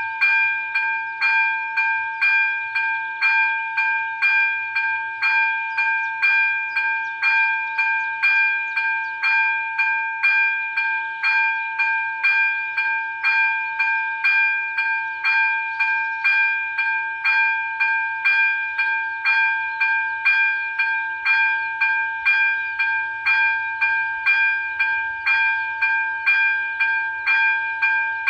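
Electronic level-crossing bell (ZV-02 e-bell) ringing steadily at about two evenly spaced dings a second, each a bright multi-tone strike that fades quickly. It is the crossing's warning signal, active while the red lights flash for an approaching train.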